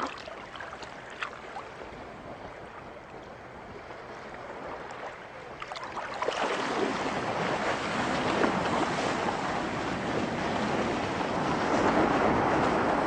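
Wind rushing over a microphone on a kite's control bar, mixed with the wash of sea water, with a few light splashes at first. About six seconds in the rush grows much louder and fuller and stays that way.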